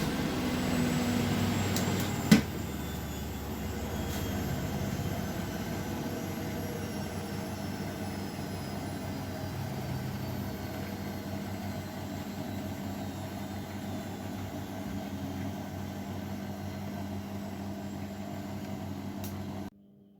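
Bosch Maxx washing machine running its wash cycle: a steady motor hum with a faint high whine slowly falling in pitch, one sharp click about two seconds in, and the motor cutting off suddenly near the end.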